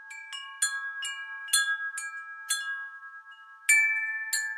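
Chime jingle: about nine light metallic strikes at irregular intervals, their bell-like tones ringing on and overlapping, with the loudest strike a little before the end.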